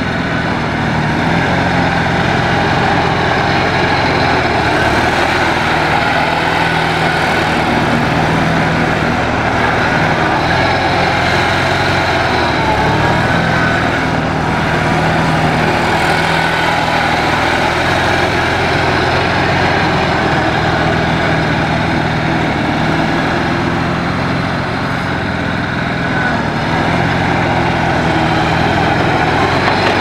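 Bobcat 440B skid-steer loader's engine running steadily as the machine drives and turns, its pitch rising and dipping slightly with throttle and load.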